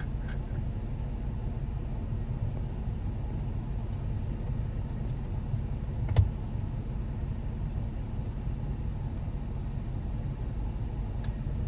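Steady low rumble of a Jeep Wrangler JKU idling with its air conditioning running, heard inside the cabin. A single sharp click comes about six seconds in.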